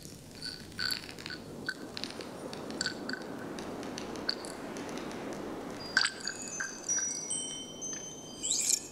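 Delicate glassy tinkling: scattered light clinks, then about six seconds in several high chime-like tones ringing and overlapping.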